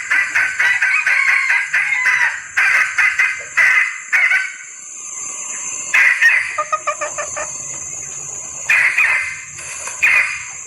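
Junglefowl hen calling in breeding condition, the call that draws males: quick runs of clucking calls, a lull about four seconds in, then several more bursts of calls.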